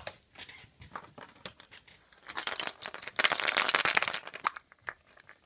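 Hollow plastic surprise-egg capsules clattering against one another as a hand rummages through a pile of them and picks one out. A few light clicks at first, then a dense rattle from about two seconds in that dies away near the end.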